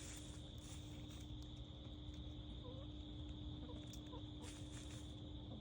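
Faint steady cricket chorus, with a few soft short chirps from other animals partway through.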